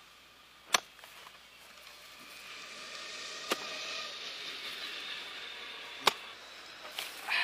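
A long-handled hoe chopping into frozen, snow-covered soil: three sharp strikes a couple of seconds apart, the middle one lighter, then a rougher scrape of the blade through earth near the end. A steady hiss swells in the middle.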